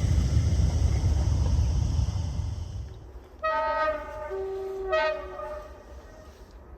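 A passing train's rumble fades away over the first three seconds. Then a train's two-tone horn sounds: a high note, a lower note, then the high note again, briefly.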